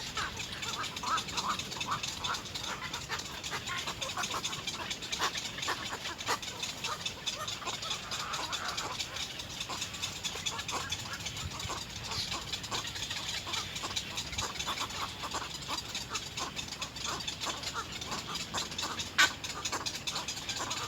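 Little egret chicks in the nest giving a steady run of short, rapid begging calls as they compete for food, with one sharper click a little before the end.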